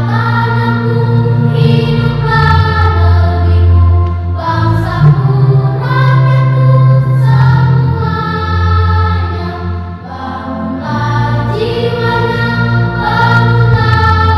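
A children's choir singing together in full voice, phrase after phrase, over sustained low bass notes that change with the phrases.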